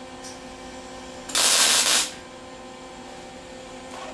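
One short burst of a 120-volt Craftsman MIG welder arcing on 18-gauge sheet steel, lasting under a second about a third of the way in: a single stitch weld laid between earlier tack spots to make the seam solid. A steady hum runs underneath.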